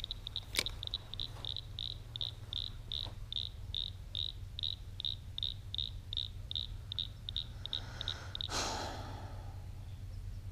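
An insect chirping in a steady rhythm, about three short high chirps a second, which stop about eight and a half seconds in as a brief rushing noise sounds. A single sharp click about half a second in.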